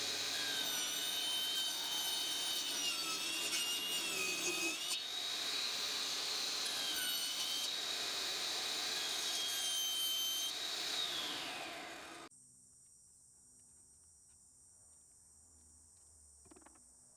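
Table saw running and cutting through a black plastic snorkel intake connector tube, its high whine shifting in pitch as the blade works through the plastic. About 12 seconds in it winds down and stops.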